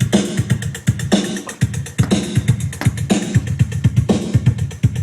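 Music with a steady, heavy drum-machine beat playing from a Yamaha CRX-TS20 micro system tuned to an FM radio station.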